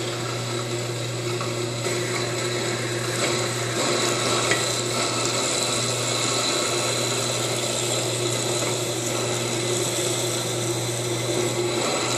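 FELI NBM-200 electric nut butter grinder running steadily, its grinding discs milling blackcurrants into paste: a constant motor hum with a steady high whine.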